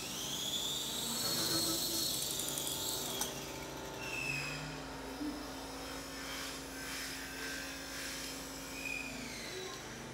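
Electric motors of a small 3D-printed fixed-pitch RC helicopter, a brushless main-rotor motor and a separate tail motor, whining at a pitch that rises and falls with the throttle. It is loudest in the first three seconds, with a sharp click, and runs on more quietly before winding down near the end. The tail motor is tilted, so the helicopter cannot hold a steady flight.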